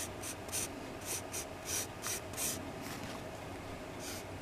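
Pencil sketching on paper: a run of short scratchy strokes, about three a second, with a brief pause near the end.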